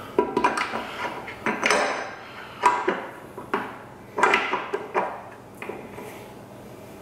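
Steel gear parts of an NP273 transfer case clinking and clunking against each other as a part is worked into the planetary gear set to line it up. Irregular metal knocks, about eight or nine, some with a brief ring.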